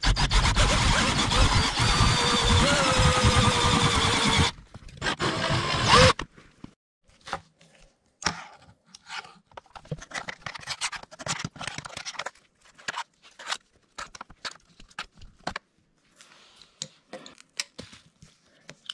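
Electric drill running in reverse with a screw-extractor bit biting into a damaged steering-wheel screw: one run of about four and a half seconds, then a shorter burst. After that come scattered light clicks and clinks of metal parts being handled.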